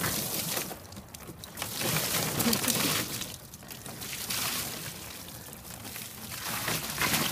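A bucket of ice water being poured and splashing over a dog, coming in uneven surges: heaviest near the start and from about two to three seconds in.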